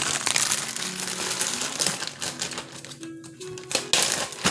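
Plastic bag crinkling and crackling as it is handled, loudest near the end, over soft background music.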